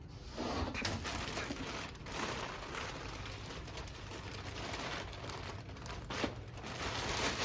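Packaging rustling and crinkling, with irregular handling noises, as the bench grinder is unpacked.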